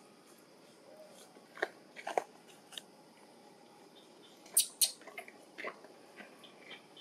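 A few sharp clicks and cracks, the two loudest close together about four and a half seconds in, with a few faint, short squeaks from infant long-tailed macaques.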